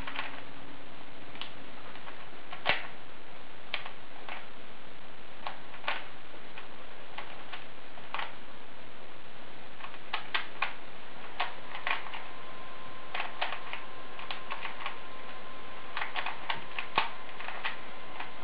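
Plastic 3x3x3 Rubik's Cube being turned by hand: scattered sharp clicks of the layers snapping round, coming in quick runs from about ten seconds in as the solve nears its end, over a steady hiss.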